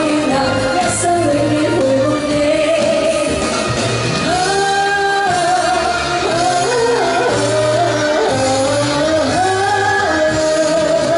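A woman singing a Cantonese pop song live into a handheld microphone over backing music, holding some notes.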